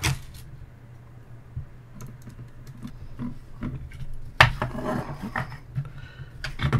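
Plexiglass case panels and metal screws and standoffs being handled and fitted together: scattered light clicks and taps, with a sharp knock about four and a half seconds in followed by a second of rubbing and scraping. A low steady hum runs underneath.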